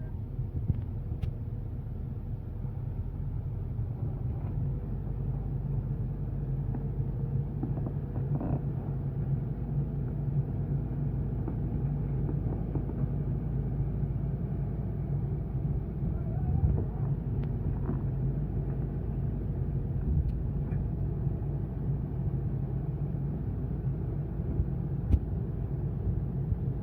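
Kobelco SK220 excavator's diesel engine running steadily with a low drone, with a few faint knocks scattered through it.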